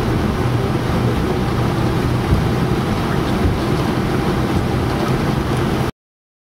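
Steady low rumble and hiss of cockpit noise inside an Airbus A321 on the ground, cutting off abruptly near the end.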